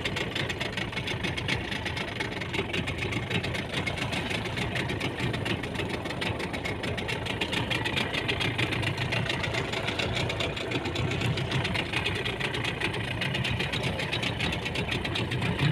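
Small fishing boat's engine running steadily with an even, rapid pulse.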